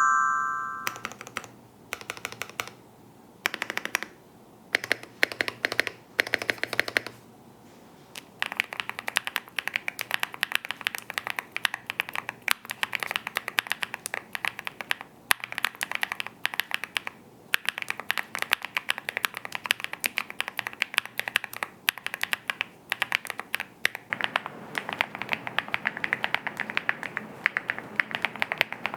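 Typing on a TacWorks TAC-K1 65% aluminium gasket-mount mechanical keyboard. It starts with a few short runs of key clicks, then becomes steady, fast typing from about eight seconds in. A brief chime sounds at the very start.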